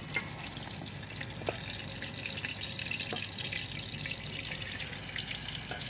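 Small whole fish frying in hot oil in a frying pan: a steady sizzle dotted with crackling pops and a few sharp clicks.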